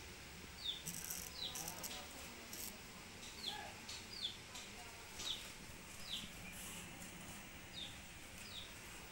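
A bird repeating a short, high, falling chirp, about eight times at irregular spacing, with a few faint clicks in between.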